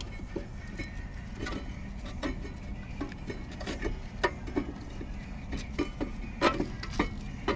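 Irregular metal clicks and clinks of tools against a disc-brake caliper as its piston is pressed back with an old brake pad, about a dozen sharp knocks spread over several seconds. A steady low hum runs underneath.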